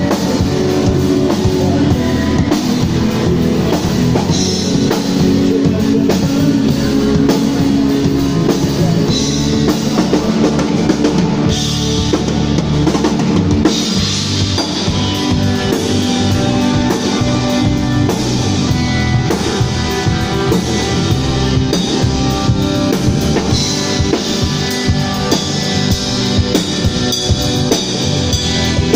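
Rock band playing a song live through amplifiers: a Canopus drum kit with bass drum and cymbals, and electric guitar, in a soundcheck run-through.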